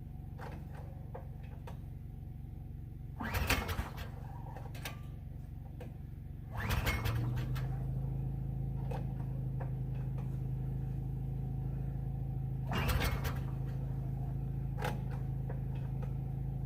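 Small engine's recoil starter pulled three times, each pull a short rasp of the rope, without the engine catching. A steady low hum runs underneath and gets louder after the second pull.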